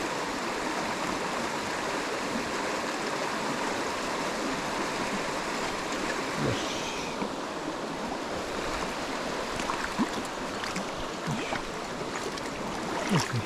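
Mountain stream water rushing steadily over rocks, with a few short clicks or splashes near the end.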